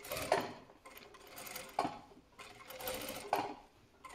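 Sewing machine stitching a seam in short runs, starting and stopping about four times.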